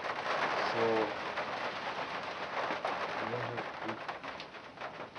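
Rain falling on a workshop roof: a dense, steady hiss of drops.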